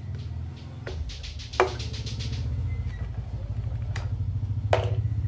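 A few sharp knocks of a hand tool cutting a recess for a concealed cup hinge into a plywood panel, the loudest about one and a half seconds in. They sound over a steady low engine hum.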